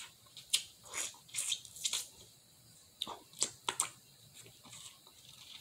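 Close-up eating sounds: wet mouth smacks and sucking at the fingers while eating seafood by hand. A run of short clicks, bunched in the first two seconds and again a little past three seconds in, with quiet gaps between.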